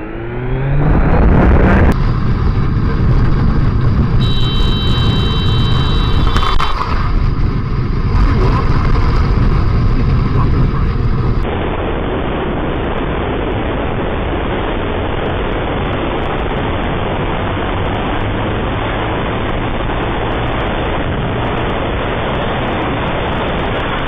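Onboard motorcycle riding sound. A Kawasaki Z900's inline-four engine revs up over the first two seconds, then comes steady engine and wind rush. A high steady tone lasts about two seconds around four seconds in.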